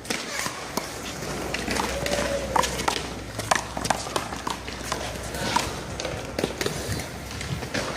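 One-wall handball rally: a rubber handball is slapped by hand and bounces off the wall and concrete court, giving a string of sharp, irregular smacks, with footsteps in between.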